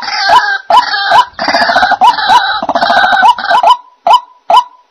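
White-breasted waterhen calling its repeated croaking "ruak ruak" notes, first in a fast, crowded run. About four seconds in, the calls settle into single notes about twice a second.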